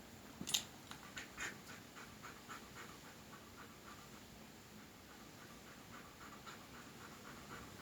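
Garafiano shepherd dog panting softly in quick, even breaths, about three a second, with a couple of faint clicks in the first second.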